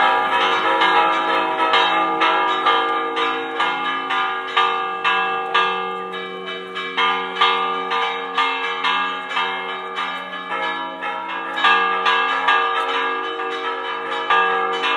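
Church tower bells ringing a fast Spanish repique: quick strokes, several a second, overlapping with the long ring of the bells. The ringing slackens briefly about six seconds in, then picks up again.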